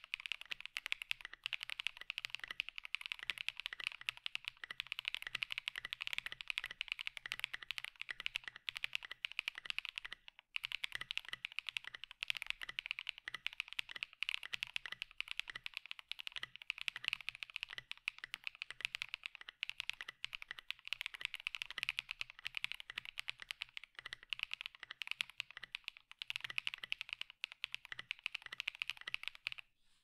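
Fast, continuous typing on a Luminkey60 LX 60% mechanical keyboard with HMX Hyacinth V2U switches on a polypropylene plate in a dampened gummy O-ring mount, giving a clacky keystroke sound. The typing pauses briefly about ten seconds in.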